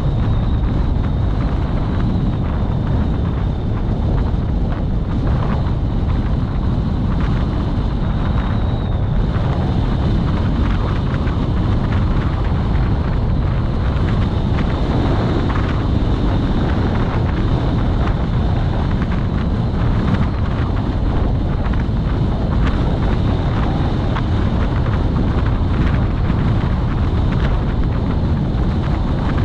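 Steady road noise from a moving vehicle, with wind rumbling on the microphone.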